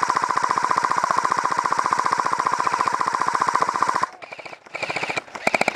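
Airsoft gun firing on full-auto: one long, rapid, even burst of about four seconds, then two short bursts near the end.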